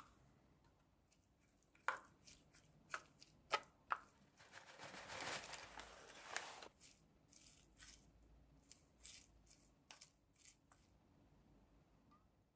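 Food-preparation handling sounds: a few sharp clicks and cracks, then about two seconds of tearing or rustling noise, then more light clicks.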